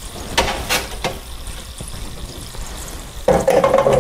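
Hot oil in a deep fryer sizzling and bubbling around a freshly lifted basket of shoestring fries, with a few sharp metal clicks in the first second. Near the end, a louder sound with a steady pitch joins in.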